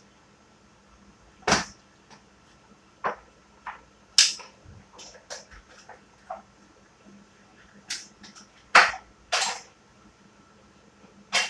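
Irregular sharp clicks, taps and knocks from food preparation, as items and utensils are handled and set down on a tabletop, about a dozen in all with the loudest about a second and a half in and around nine seconds in.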